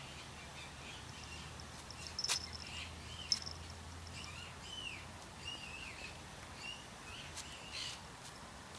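Small birds chirping in short repeated calls over a steady outdoor background, with two sharp clicks a second apart, about two seconds in.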